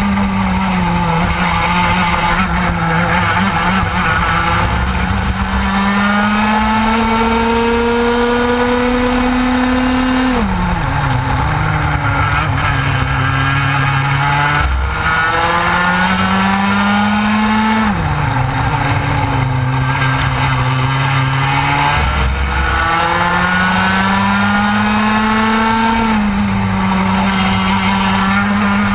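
TKM Extreme kart's 115cc two-stroke engine at racing speed. Its pitch climbs steadily along the straights and drops sharply under braking, about ten seconds in and again about eighteen seconds in, then climbs again.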